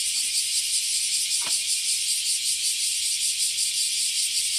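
Dense chorus of cicadas, a loud high-pitched shrill that pulses fast and evenly without a break.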